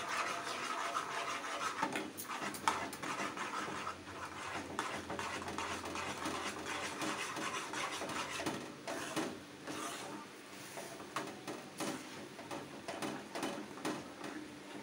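Steel ladle stirring thick, sticky rice halwa in a stainless steel pot, scraping the metal bottom and sides in a run of short irregular scrapes.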